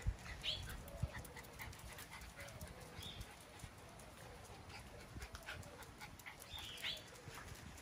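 Miniature Schnauzer dogs and puppies playing: light panting and scuffling on the paving, with a few short high chirps.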